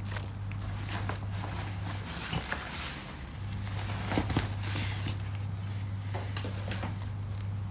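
A few scattered clicks from a Dell laptop's touchpad, the clearest about halfway through, over a steady low hum.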